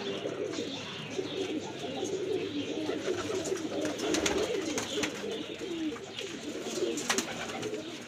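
A loft full of Rampuri pigeons cooing, many low warbling coos overlapping without a break. A few brief sharp sounds come about halfway through and near the end.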